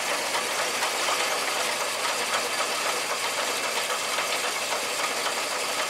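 International D1310 truck's engine idling steadily while it warms up from a cold start, around the time its thermostat opens.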